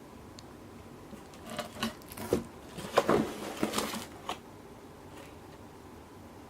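Packaging being handled and opened: a run of rustling and crinkling with a few sharp clicks, lasting a couple of seconds and loudest in the middle.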